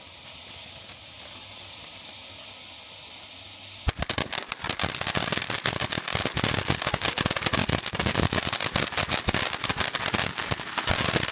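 Fireworks going off as a dense, rapid crackle of many sharp pops, starting suddenly about four seconds in and going on for about seven seconds. Before that there is only a steady faint hiss.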